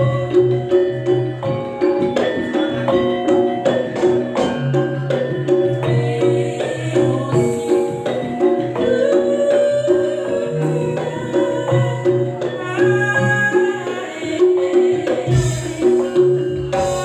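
Campursari music playing: a steady bass line and pitched melodic notes over a busy rhythm of hand-drum and other percussion strokes.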